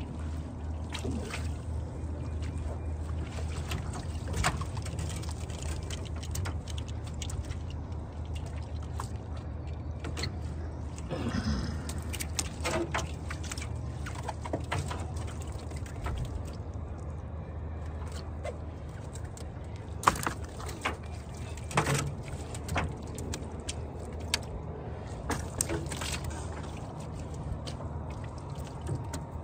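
Water pouring and dripping off a cast net as it is hauled up over an aluminium jon boat. Sharp knocks sound against the metal hull as the net and its catch of hassar catfish are shaken out, stronger in the second half. A steady low hum runs underneath.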